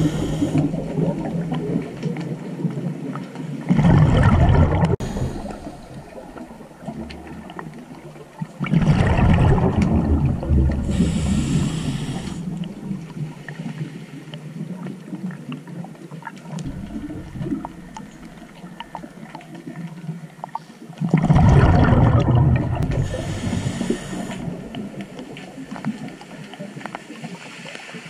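A scuba diver breathing underwater through a regulator, with three long rushes of exhaled bubbles about four, nine and twenty-one seconds in. A fainter hiss of the regulator and water noise runs between them.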